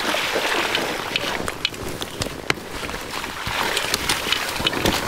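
Fatbike rolling through shallow wet snow: a steady rushing hiss from the fat tyres and air movement, broken by frequent sharp clicks and crunches.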